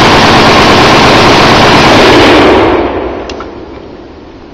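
AK-47 rifle firing a long fully automatic burst, loud enough to overload the recording. The burst stops a little under three seconds in, and the report dies away over about a second.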